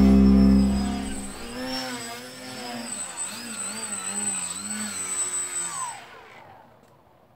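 Music fades out in the first second. Then the electric motor and propeller of a foam RC Factory Edge-540 aerobatic plane whine in a hover, the pitch rising and falling as the throttle is worked, until the motor is cut about six seconds in as the plane is caught by hand.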